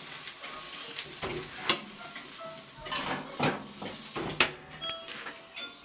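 Marinated lamb chops sizzling in olive oil on a hot metal baking tray, with several sharp knocks and clatters as the tray is handled and slid into the oven.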